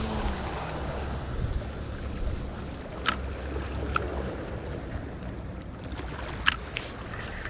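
Wind buffeting the microphone over sea surf, with a high hiss for the first couple of seconds as braided line pays out after the cast. Then three sharp clicks from the spinning reel and rod handling.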